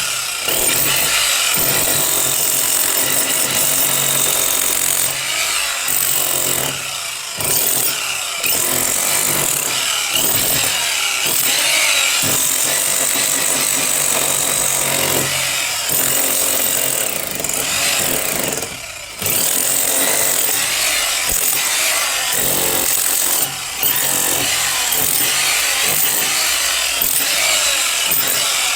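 A power tool running under load almost without pause, with several brief drops where it eases off.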